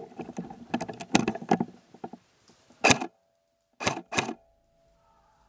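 G&P Viper airsoft electric rifle firing three single shots, the first about three seconds in and the other two in quick succession about a second later. These follow a couple of seconds of clattering handling and movement noise.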